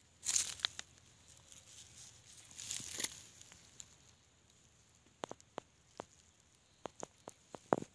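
Dry grass and leaf litter rustling and crackling in two short bursts, then a scattered run of light clicks and snaps in the second half.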